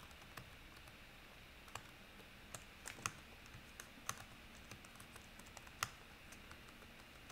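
Faint, irregular keystrokes on a computer keyboard as a terminal command is typed, a few taps at a time with short pauses.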